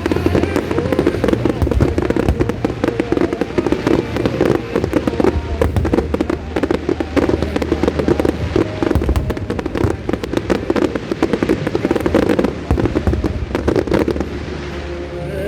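Aerial fireworks going off in a dense, rapid barrage of bangs and crackling, with show music playing underneath; the cracking thins out near the end.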